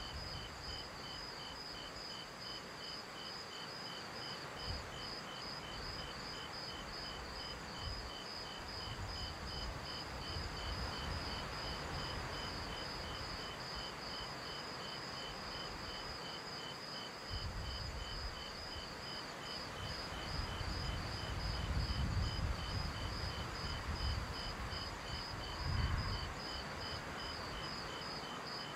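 Crickets chirping steadily in an even, repeating rhythm, with a soft low rumble that swells and fades, louder in the second half.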